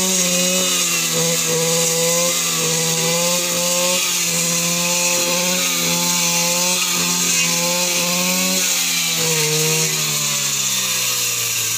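Shoulder-slung brush cutter's small petrol engine running at high revs while cutting through undergrowth, its pitch dipping and recovering under load. About nine seconds in the throttle is eased and the engine winds down toward idle.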